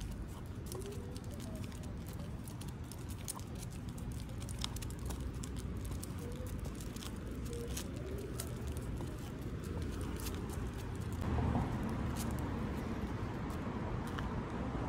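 Steady low rumble of road traffic, growing somewhat louder about eleven seconds in. Over it come frequent light, irregular clicks from a dog walking on brick paving.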